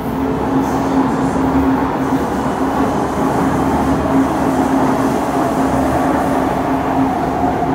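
Kawasaki C151 electric train running, heard from inside the car: a steady rumble of wheels and running gear under a humming motor tone, with a fainter higher tone slowly rising in pitch.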